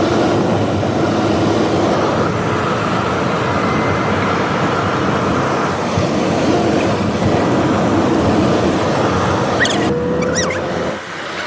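Car driving along: steady road and wind noise, with the sunroof open. A few brief high chirps or squeaks come near the end.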